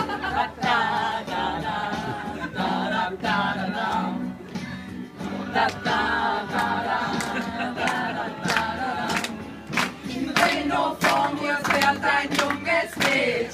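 A small group of women singing a song together. From about halfway through, a regular beat of sharp taps runs under the singing.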